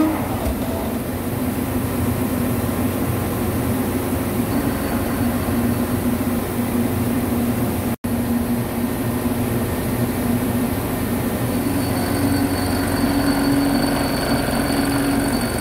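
CNC machining centre boring and chamfering a stainless steel (STS316) nozzle pipe with a boring bar: steady spindle and cutting noise with a constant low hum. The sound cuts out for an instant about halfway, and a faint high whine joins near the end as the tool works the edge.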